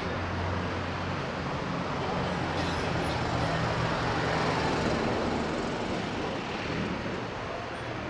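Street traffic: a steady wash of road noise with a low motor-vehicle engine hum that fades out about halfway through.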